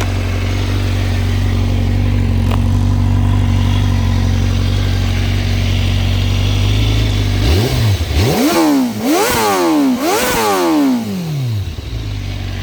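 Honda CBR1000RR-R Fireblade SP's inline-four engine with an Akrapovič exhaust, idling steadily. About seven and a half seconds in it is revved four times in quick succession, each rev rising and falling in pitch, and then it settles back to idle.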